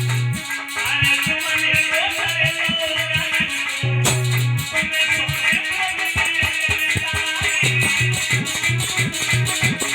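Instrumental music from a live band: a steady percussion beat under a wavering melody, over a deep held bass note that drops out and returns.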